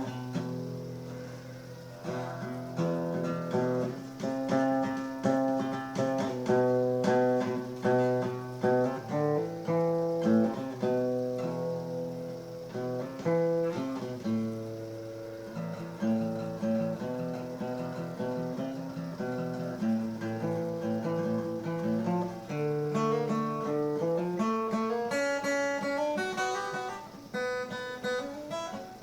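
Acoustic guitar playing, a steady run of picked notes and strummed chords, each ringing and dying away.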